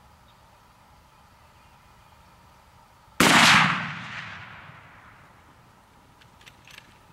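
A single .243 rifle shot about three seconds in: one sharp, very loud report that rolls away over about a second and a half. A few faint clicks follow near the end.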